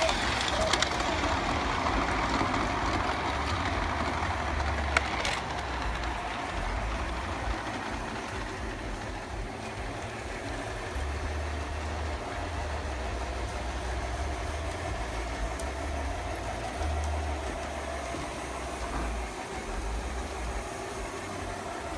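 Several LGB large-scale model trains running at once, a steady whir and rumble of their electric motors and wheels on the track. A sharp click about five seconds in.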